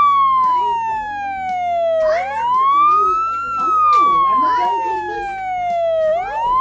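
Electronic siren wailing, its pitch rising quickly and falling slowly in a cycle about every four seconds.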